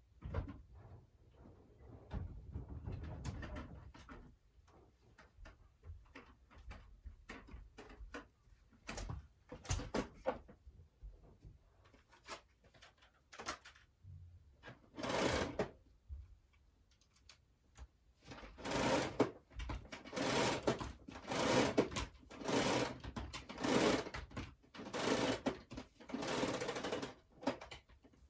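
Household clutter being handled and moved: scattered knocks and clicks, then about halfway through a run of short rustling, scraping strokes, roughly one a second.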